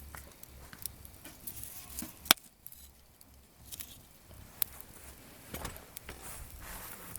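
Campfire of gathered firewood crackling, with scattered sharp pops; the loudest snaps a little over two seconds in.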